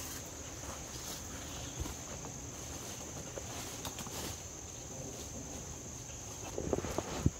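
Steady high-pitched trilling of insects, like a cricket chorus, with faint rustling and a few knocks near the end.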